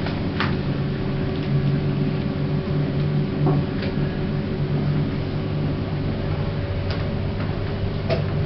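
Lift car travelling between floors, a steady machine hum with a few clicks along the way; the uploader calls these lifts very slow.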